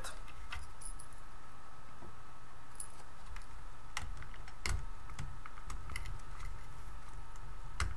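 Scattered light clicks and taps as hands handle a multimeter's circuit boards and plastic case, over a steady low hum.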